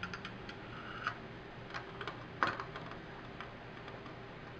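Scattered small clicks and taps, the loudest about two and a half seconds in, as a Thermalright Venomous X heatsink's mounting plate and screws are handled and fitted onto a motherboard's mounting bracket.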